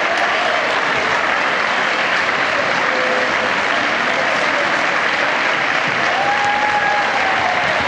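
Crowd applauding steadily in a gymnasium.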